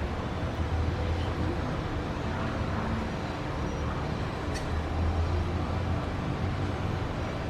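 Steady low rumble under a constant wash of noise, like distant road traffic; no bird call stands out.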